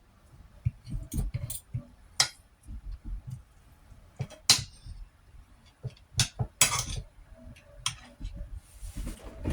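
Eating from a plate: utensils clink sharply against the plate about seven times, with chewing sounds in between.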